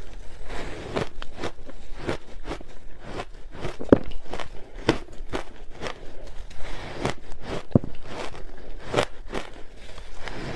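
Close-miked biting and chewing of hard ice chunks coated in matcha powder: a steady run of sharp crunches and cracks, about two or three a second, with gritty crackling between bites.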